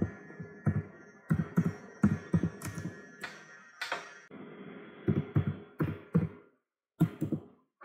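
Computer keyboard being typed on: irregular sharp keystroke taps with a few mouse clicks, over a faint steady hum.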